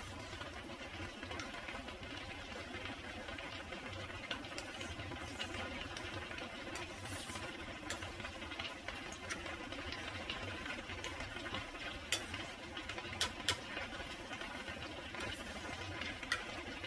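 A spatula stirring thick cream sauce in a nonstick frying pan, with a few sharp knocks of the spatula against the pan, most of them in the second half, over a steady background hum.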